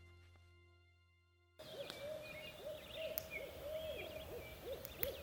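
Background music fading out, then after about a second and a half owls hooting: a quick run of many short, arching calls, rising and falling.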